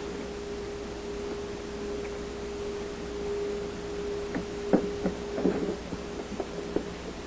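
Sharp knocks and clicks begin about four seconds in and come irregularly, several a second at times, from parts of a dishwasher door being handled and taken apart. A steady hum at one pitch runs underneath.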